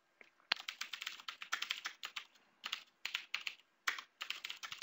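Typing on a computer keyboard: runs of quick keystroke clicks with short pauses between words.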